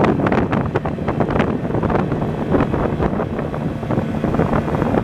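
Wind buffeting the microphone on a moving small boat, in irregular gusts, over the steady low run of the boat's outboard motor.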